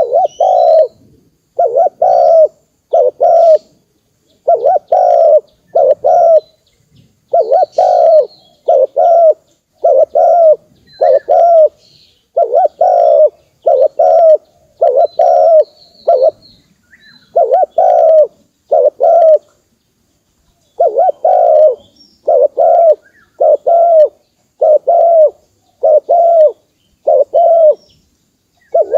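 Spotted dove cooing over and over, its low notes coming in groups of two or three with short pauses between. Faint chirps of small birds sound higher up.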